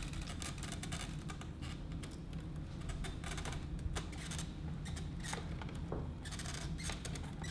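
Rubbing, scraping and many small clicks of PC power-supply cables and plastic connectors being handled and plugged in, over a low steady hum.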